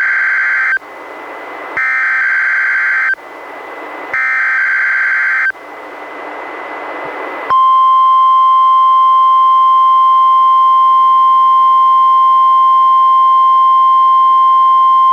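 NOAA Weather Radio Emergency Alert System signal for a required weekly test, heard through a weather radio receiver. First come the SAME header's screeching digital data bursts: the tail of one, then two more about 1.3 s long, with radio hiss between them. About 7.5 s in, the steady 1050 Hz NWR warning alarm tone begins and holds unbroken.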